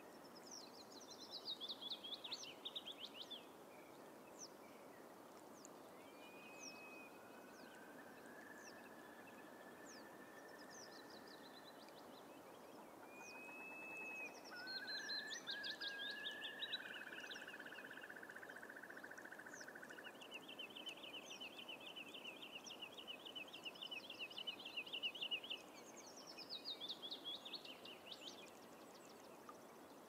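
Several bog birds singing and calling over a steady soft hiss: short falling song phrases repeat every few seconds, with a few rising whistles, a long pulsed whistle in the middle and a long rapid trill in the second half.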